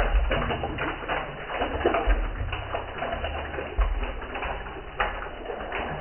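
Birds calling, doves cooing among them, over water trickling into a plastic drain box, with a few short knocks, the clearest about five seconds in.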